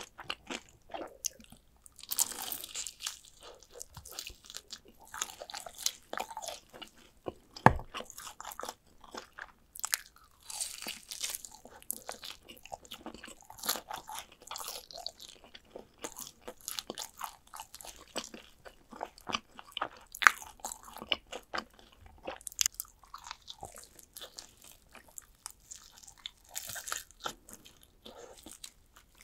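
Close-up crunching and chewing of fried chicken drumsticks: irregular crisp crackles of the batter between bites, with one sharp crack about eight seconds in.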